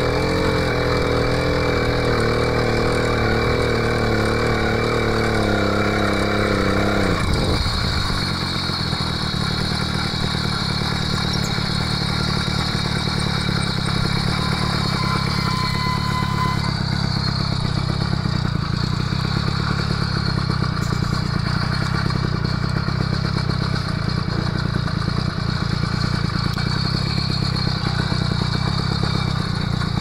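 The 80cc two-stroke engine of a motorized bicycle runs under the rider. Its wavering, pitched drone changes abruptly about seven seconds in to a steadier sound that loses its clear pitch.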